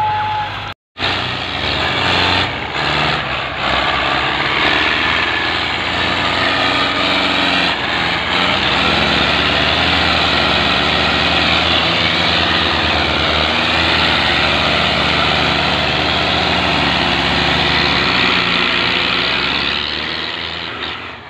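Belarus tractor diesel engine running hard, a dense, steady engine noise, as it strains to pull a heavily loaded, stuck trolley. The sound cuts out briefly about a second in and fades away near the end.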